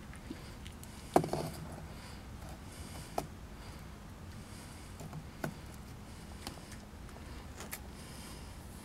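Sparse clicks and knocks of dry cat kibble and a plastic kibble scoop being handled while a cat eats. The loudest comes about a second in, with a short rattle after it, and three fainter clicks follow, over a steady low background.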